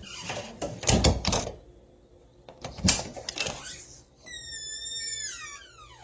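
Old wooden door being worked: the latch and handle clatter, a heavy thud, another knock, then a long hinge creak that slides down in pitch near the end.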